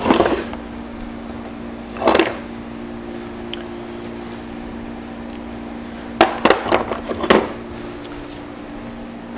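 A few sharp clicks and knocks from hands and tools at a metal lathe: one at the start, one about two seconds in, and a quick cluster of several more near the end. A steady hum runs underneath.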